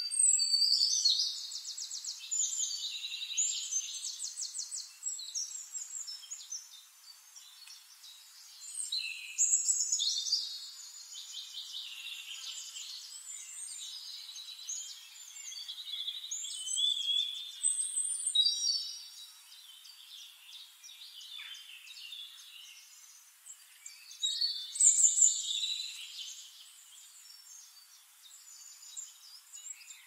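Songbirds chirping and trilling in high-pitched bursts, loudest near the start, at about ten seconds in, around seventeen seconds and at about twenty-five seconds, with quieter chirping between.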